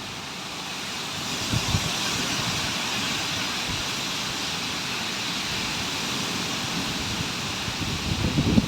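Violent storm wind rushing steadily, an even hiss that swells a little about a second in.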